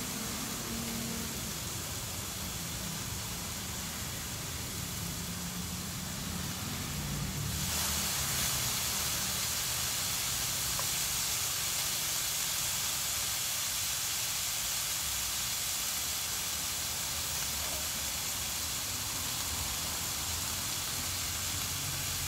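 Meat sizzling on the hot domed grill of a moo kata hot pot, a steady hiss. About seven and a half seconds in it turns louder and brighter.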